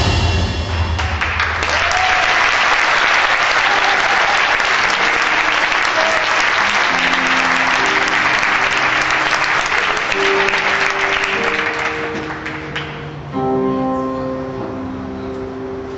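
Audience applauding. The applause swells up about a second in as loud drum-driven music cuts off, and dies away about twelve seconds in. Soft sustained instrumental music comes in under it and carries on alone near the end.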